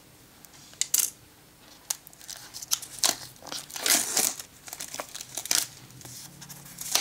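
Clear plastic shrink-wrap being torn and peeled off a cardboard box, crinkling and crackling in irregular bursts. There are sharp crackles about a second in and a denser, louder stretch around three to five seconds in.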